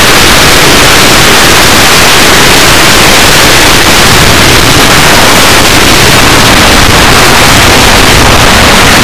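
Very loud, steady rush of wind over the onboard camera microphone of an S800 Sky Shadow FPV flying wing in flight, a flat hiss with no clear motor tone.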